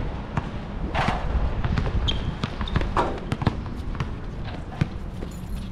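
Basketball bouncing on an outdoor asphalt court, irregular dribbling thuds mixed with players' footsteps, with a short sneaker squeak just after two seconds.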